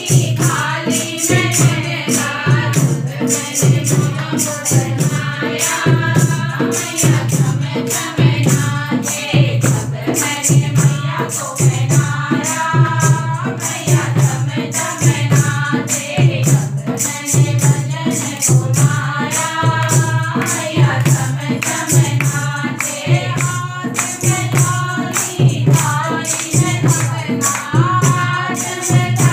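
Group of women singing a Hindu devotional bhajan together, with hand claps keeping a steady beat.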